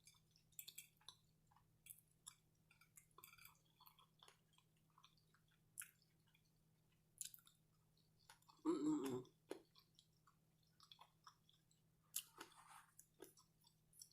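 Faint, close-miked chewing and wet mouth clicks of a person eating soft pierogies, with one brief louder mouth sound about nine seconds in.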